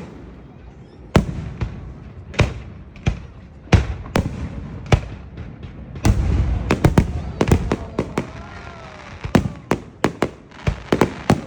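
Fireworks going off: a string of sharp bangs at irregular intervals, with a rapid cluster of reports about six seconds in.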